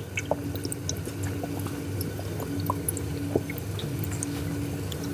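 Faint liquid sounds: scattered small clicks and drips over a steady low hum.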